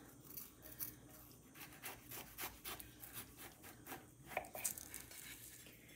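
A knife being worked through a soft apple crumble cake, with faint, irregular scraping and crumbling from the streusel topping.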